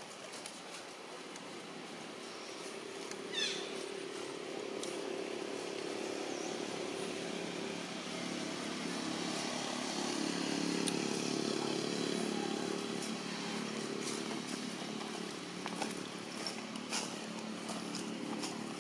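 A steady engine hum that builds slowly, loudest about eleven seconds in, then eases off. A short falling chirp sounds about three and a half seconds in.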